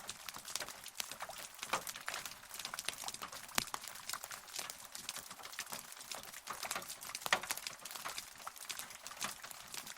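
Rain falling: a dense, irregular patter of many separate drops, with sharper individual drop hits now and then and no thunder.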